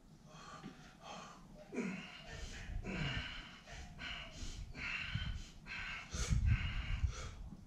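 A man breathing hard, panting and gasping in quick, heavy breaths about once a second to catch his breath after a heavy deadlift set.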